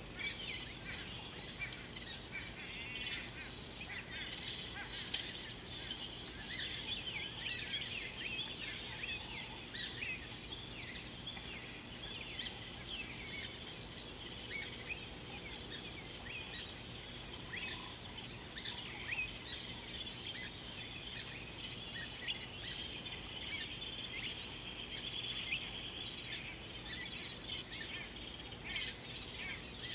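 Dense chorus of many birds chirping at once, a continuous mass of short high calls, over a faint steady low hum.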